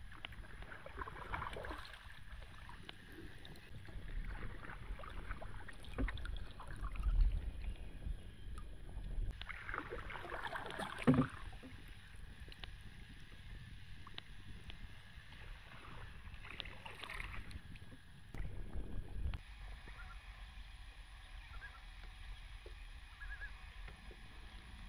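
A canoe under way on a lake: irregular swishes and splashes of paddle and water over a low wind rumble on the microphone, with a sharp knock about eleven seconds in. After about nineteen seconds the rumble drops away to a quiet background with a few faint chirps.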